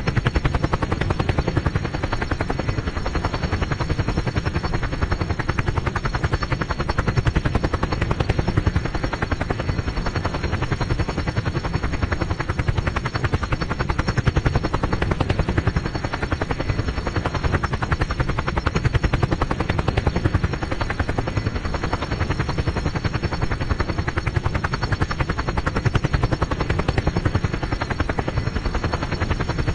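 Helicopter hovering, its rotor beating in a fast, steady, even chop with no change in pitch or level.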